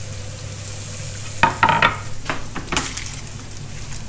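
Food sizzling in a frying pan while being stirred, with a utensil scraping and knocking against the pan a few times about halfway through.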